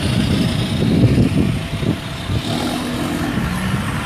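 Road vehicle engines running close by in street traffic, a low rumble that swells about a second in.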